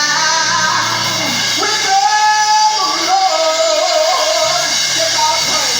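Gospel singing with musical accompaniment: a voice holding long, wavering sung notes.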